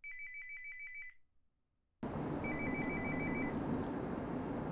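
A telephone ringing with a fast two-tone electronic trill, in two bursts of about a second each. About two seconds in, steady road noise inside a moving car comes in underneath.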